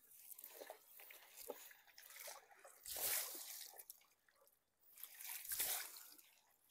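Water dripping and sloshing off a mesh shrimp trap net as it is hauled out of the river and handled, with two louder splashy swishes about three and five and a half seconds in.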